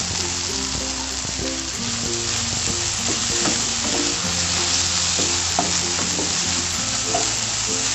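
Onions and spice paste sizzling in oil in a nonstick pan as they are sautéed until fragrant, with a spatula scraping and tapping against the pan as they are stirred. Soft background music of held notes runs underneath.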